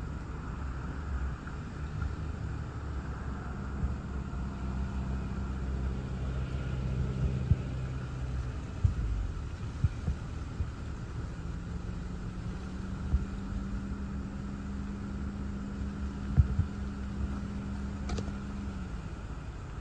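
Low, steady rumble heard from inside a stopped car in gusty thunderstorm outflow wind, with a low hum that comes and goes and a few sharp knocks.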